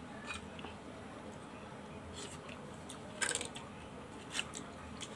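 Boiled scallop shells clicking as they are handled while eating: a handful of sharp, separate clicks, the loudest about three seconds in.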